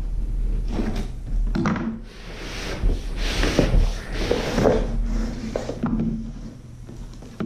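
Packaging being handled and opened: scattered knocks and rubbing, with a stretch of louder rustling about two seconds in that lasts a couple of seconds.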